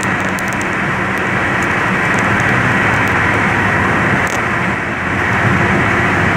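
Steady running noise of a moving vehicle: a low engine drone under an even rushing road noise.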